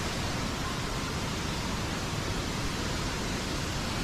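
Steady rush of falling water from a small waterfall, an even noise with no change in level.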